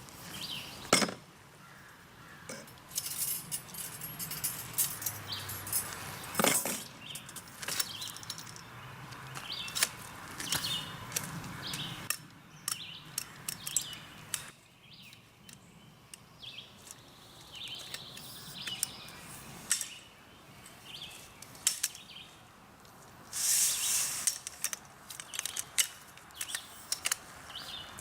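Camp gear being handled and packed up: scattered light clinks and knocks with bouts of rustling, the loudest rustle about twenty-four seconds in.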